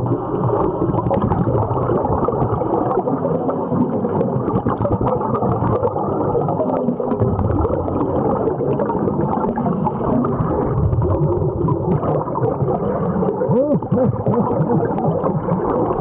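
Scuba regulator breathing recorded underwater: a brief high hiss of inhalation comes about every three and a half seconds, over steady bubbling and gurgling of exhaled air. There is a short squeaky up-and-down glide near the end.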